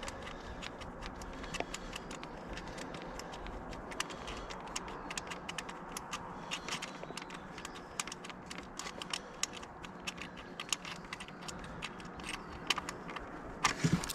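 Scattered light clicks and rattles, irregular and many, with a few louder knocks near the end, from handling the electric scooter's charger plug and cable while unplugging it.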